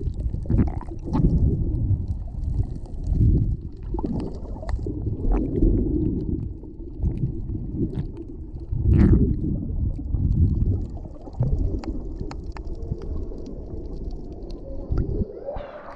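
Underwater swimming heard from below the surface: muffled, low rumbling surges of moving water and bubbles from kicking strokes, with scattered clicks. About fifteen seconds in, the sound turns brighter with splashing as the camera comes up out of the water.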